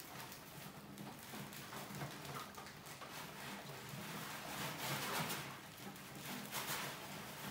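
Many mice scurrying and scrabbling over a plastic bucket trap and its ladder: a continuous irregular patter of small claw scratches and rustles, busiest about five seconds in.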